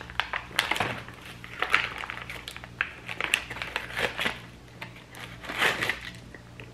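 MRE oatmeal-cookie pouch being torn open and its plastic wrapper crinkling as the cookie is pulled out: irregular tearing and crinkling of packaging.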